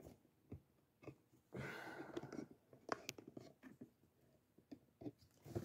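Faint handling noise: a brief rustle about one and a half seconds in, then a few light clicks and taps, as the camera is moved and repositioned over the desk.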